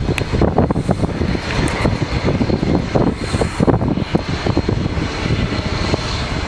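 Boeing 747's four jet engines running, a loud steady rough rumble with a faint high whine over it.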